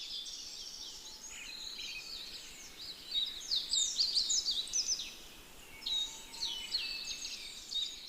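Birdsong ambience: several birds singing at once, a dense run of quick high chirps and sweeping whistled notes over a faint hiss.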